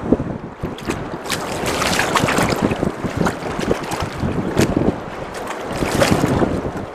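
Wind buffeting the microphone over choppy sea, with water slapping and splashing against a small boat's hull and irregular knocks and splashes as a hooked bass is drawn alongside and lifted in.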